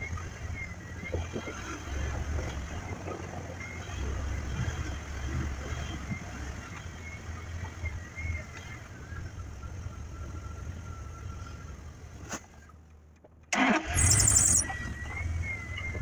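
Truck engine running at low speed while the truck jostles over a rough dirt trail, heard from inside the cab. Near the end the sound drops out for about a second, followed by a short, loud burst of noise.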